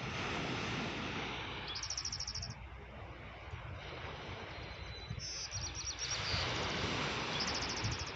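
A songbird singing a short, rapid high trill three times, over a steady background rush of outdoor noise.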